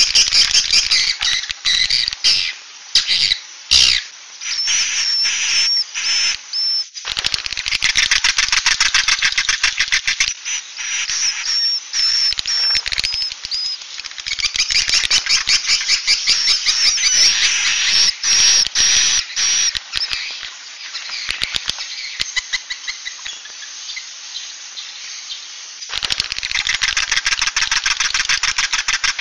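Swiftlet calls: a dense, rapid chittering twitter of clicks and high chirps, looping on with brief breaks. It is the 'suara inap' roosting lure played in swiftlet houses to draw the birds in to roost.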